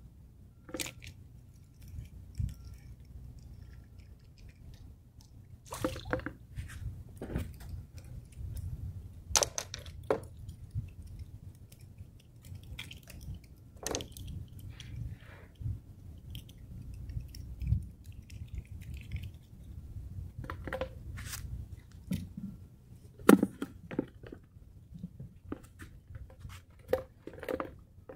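Scattered, irregular clicks, taps and crackles of hands handling a small freshly caught fish, hook and fishing line, over a steady low rumble.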